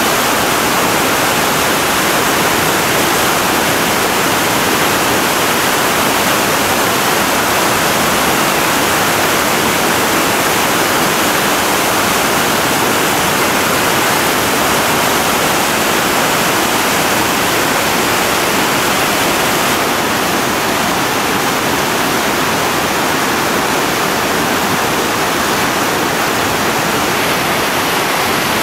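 Whitewater river rapids rushing: a loud, steady wash of churning water with no breaks.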